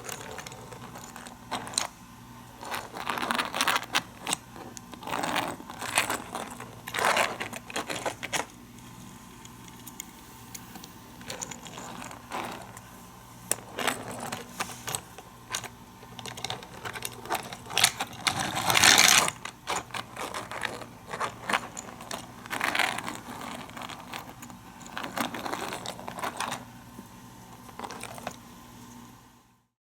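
Die-cast toy cars and plastic track pieces clattering and clicking irregularly, with one louder rattling burst a little past the middle. The sound cuts off just before the end.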